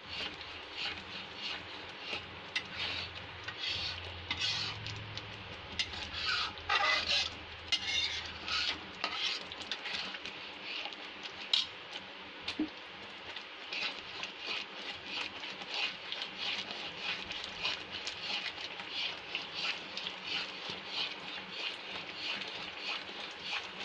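Steel spoon stirring and scraping mawa and sugar cooking in a metal kadhai, a steady run of strokes against the pan about one to two a second, with one sharper clink a little before halfway.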